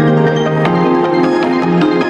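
Background music: quick, evenly spaced struck notes over held chords, with a chord change about two-thirds of a second in.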